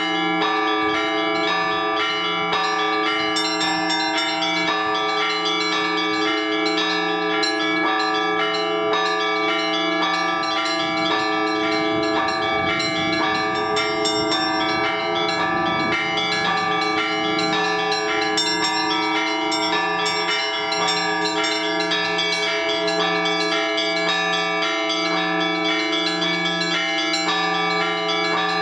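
Russian Orthodox church bells rung in a continuous multi-bell peal: small bells chiming rapidly over ringing middle bells, with a lower bell struck in a steady beat that pauses for several seconds midway, then resumes.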